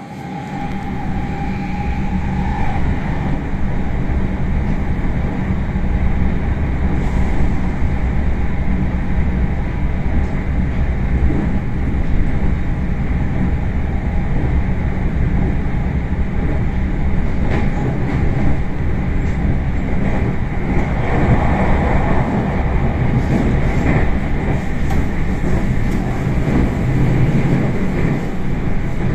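Electric commuter train running at speed, heard from inside the passenger car: a steady low rumble of the wheels on the rails. A thin steady tone sounds over it for the first three seconds and then fades.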